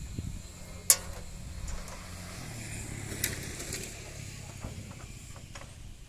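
A low, steady engine hum, with one sharp knock about a second in and a lighter one about three seconds in.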